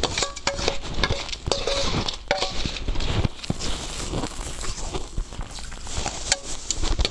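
Crunching and crackling of frozen coloured ice being chewed, with a metal spoon clinking against a stainless steel bowl, a few of the clinks ringing briefly.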